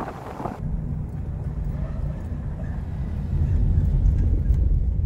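A car rolling over a cobblestone road, heard from inside the car as a steady low rumble that grows a little louder in the second half. It opens with a brief moment of wind and tyre clatter that cuts off about half a second in.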